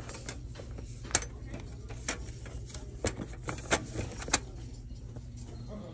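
Footsteps on a hard tiled floor, a sharp click about once a second with a few lighter ticks in between, over a steady low hum of the store's background.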